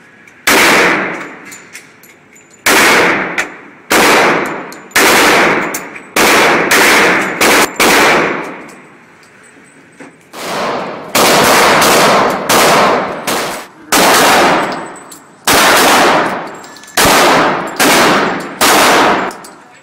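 A string of loud gunshots fired one after another, roughly one a second with a short pause near the middle, each followed by an echo that dies away over about a second.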